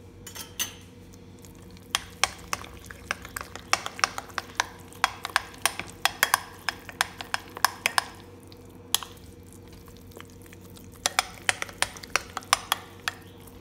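A metal spoon stirring thick semolina-and-curd dhokla batter in a glass bowl, clinking against the bowl in quick runs of taps. The stirring pauses for a few seconds about eight seconds in, then starts again.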